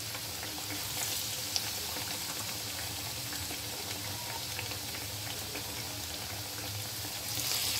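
Besan-battered bread pakoras frying in hot oil in a frying pan: a steady bubbling sizzle dotted with small crackles.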